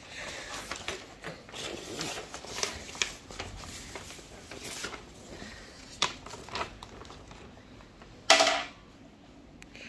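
A large folded paper track mat is handled and folded, with paper rustling and crinkling and cardboard box handling throughout. About eight seconds in there is one louder, brief rasping scrape.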